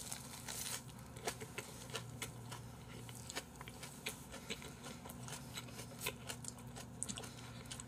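Faint chewing at the table, heard as many small scattered mouth clicks, while a lettuce wrap of braised pork trotters is eaten. A low steady hum runs underneath.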